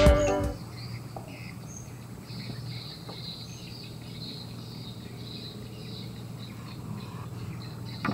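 Outdoor ambience of insects and birds chirping: a repeated high chirping over a faint steady low hum, with a single click at the very end.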